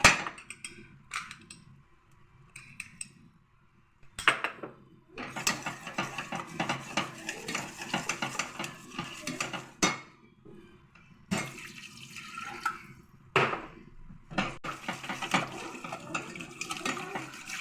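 A spoon stirring and scraping in a saucepan of béchamel sauce as flour and milk are worked in little by little, with sharp clinks of the utensil against the pot. The stirring stops briefly about a second in and resumes about four seconds in.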